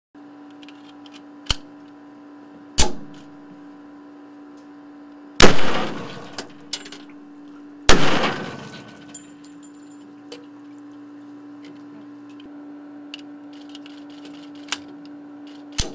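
Two loud pistol shots about two and a half seconds apart, fired into a stainless-steel ballistics water tank, each ringing on afterwards. Before and after them come smaller metallic clicks from handling the semi-automatic pistol, over a steady equipment hum.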